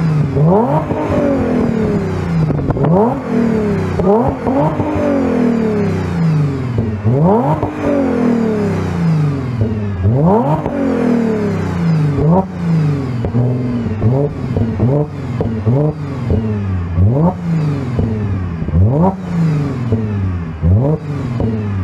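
Audi A7's supercharged 3.0-litre V6 through an aftermarket mandrel-bent exhaust with quad oval tips, revved repeatedly while parked. Each throttle blip climbs sharply and falls back toward idle, more than a dozen times. Loud.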